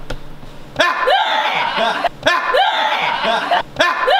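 A short laugh sounding three times in a row, about a second and a half apart, each repeat the same shape and cut off sharply before the next, like a looped laugh clip.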